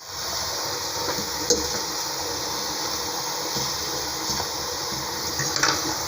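Water running steadily into a kitchen sink as cooked pasta is drained and rinsed in a colander, with a few light clinks of cookware. It starts abruptly and stops just after the end.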